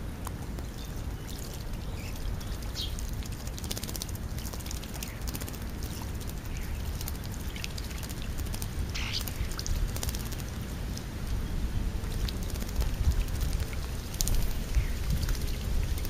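Low wind rumble on the microphone, with scattered light taps and clicks and a few short bird calls from birds feeding at the food pile, the clearest call about nine seconds in.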